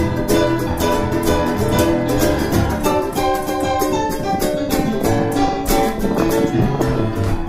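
Background music: a plucked-string, guitar-led track with a steady strummed beat.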